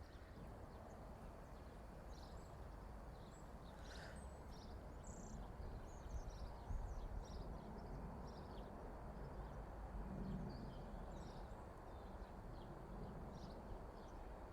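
Birds chirping, with short high calls scattered throughout, over a faint steady low rumble of outdoor background noise.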